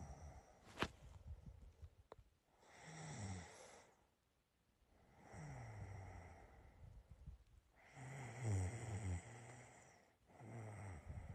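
A person snoring in their sleep, with a rattling breath roughly every two and a half seconds, about four in all. A single sharp click comes about a second in.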